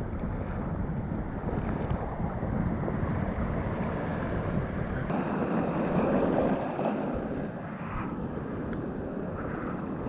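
Broken surf and foaming whitewater rushing and sloshing around a camera at water level, with wind buffeting the microphone as a steady noise.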